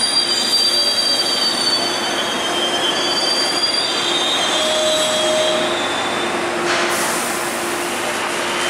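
Railroad wheels squealing against the rails as a train moves through the yard: thin, high squeals that slide and come and go in the first half, over a steady rumble with a low hum. About two-thirds of the way through, a broad hiss rises.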